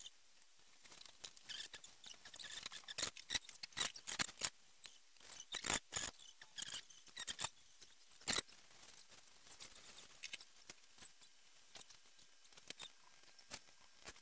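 Graphite pencil scratching across paper in quick, short, irregular strokes as fur is hatched in.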